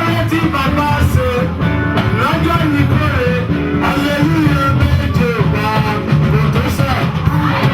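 Live church praise band playing: guitar and bass over a steady beat, with singing voices.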